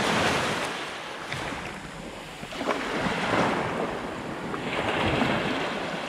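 Small waves breaking and washing up over a stony shore, the wash swelling and falling back three times.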